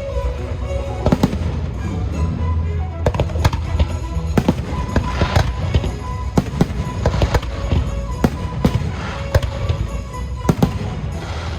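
Fireworks bursting in quick succession, more than a dozen sharp bangs, over the show's music playing through loudspeakers.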